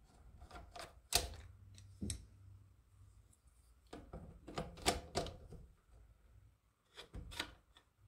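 Metal transmission cooler lines clicking and knocking against their fitting block held in a bench vise as they are handled and fitted, in scattered sharp clicks with a few louder knocks, over a faint steady low hum.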